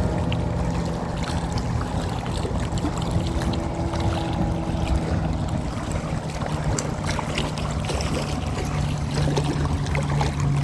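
A steady low engine hum that holds an even pitch, with faint scattered ticks over it.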